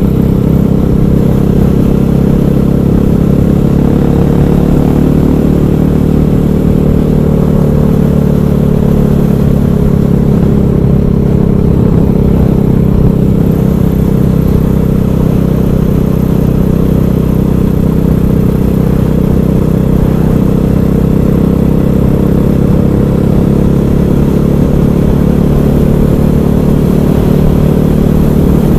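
KTM 500 EXC supermoto's single-cylinder four-stroke engine running under way at a fairly steady speed, its pitch shifting only a little.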